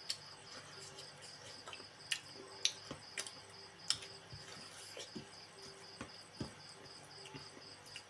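A cricket chirping steadily in a fast, even pulse, with irregular sharp clicks and smacks of someone eating over it, the loudest three between about two and four seconds in.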